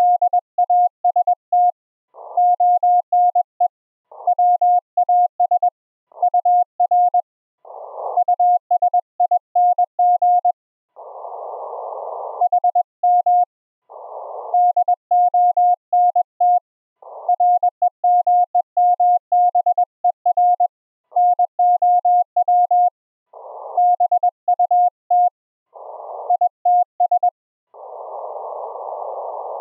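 Morse code (CW) audio from an Elecraft K3 transceiver on 40 metres: a single tone of about 700 Hz keyed in quick dots and dashes. Every few seconds the keying pauses for a second or so of hissing band noise through the receiver's narrow filter.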